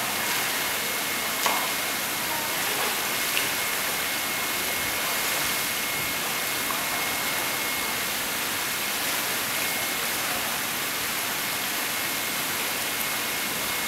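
Steady rush of running water from a swimming pool's wall cascade, with a faint steady high tone throughout and two small knocks about one and a half and three seconds in.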